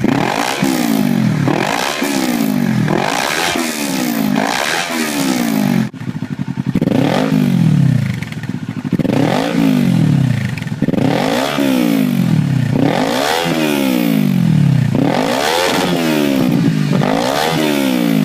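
Kawasaki Ninja 400's parallel-twin engine being revved in repeated throttle blips, the pitch rising and falling about once a second or so, with a brief break about six seconds in.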